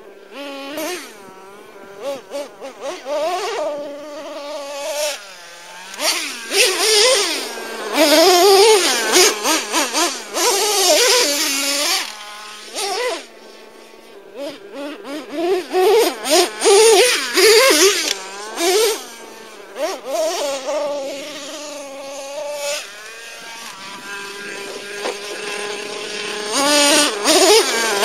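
Traxxas T-Maxx nitro RC truck's modified 3.3 engine with a drilled-out resonator pipe, a high buzz revving up and down in repeated bursts as the truck is driven, rising and falling in loudness as it moves about. It settles into a steady idle for a couple of seconds near the end before revving again.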